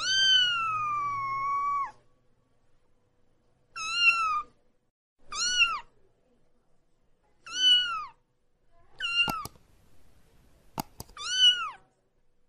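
A very young kitten meowing loudly and repeatedly, six high-pitched cries: the first one long, about two seconds, the rest short and each dropping in pitch at its end. These are the distress cries of a kitten held and washed under a tap. Two sharp clicks come between the later cries.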